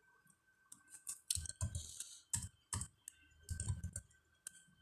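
Typing on a computer keyboard: irregular keystrokes in two short runs, the second about three and a half seconds in.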